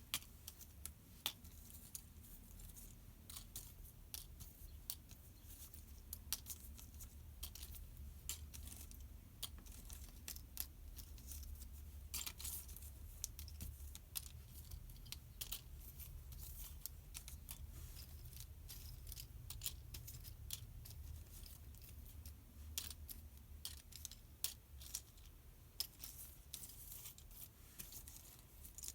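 Gem paper clips being handled and sorted on gift wrap paper: many light, irregular clicks and clinks as the clips touch each other and the paper.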